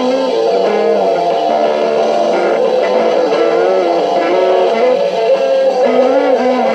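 Electric guitar playing a continuous rock instrumental passage, notes bending and sustaining over a steady bass line.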